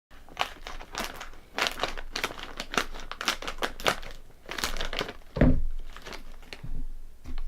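A bag of Calbee Honey Butter Chips crinkling as it is handled and worked open, in a dense run of irregular crackles, with a louder thump about five and a half seconds in.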